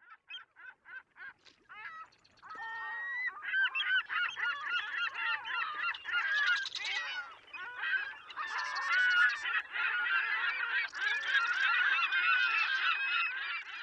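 A flock of waterbirds calling. It opens with a quick run of single calls, then about two seconds in many birds join in with dense overlapping honking calls.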